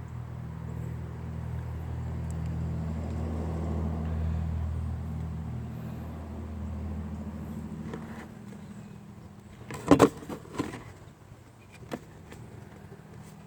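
A motor vehicle's engine running nearby, its low hum swelling and then fading away over several seconds, as of a vehicle passing slowly. A few sharp knocks follow about ten seconds in.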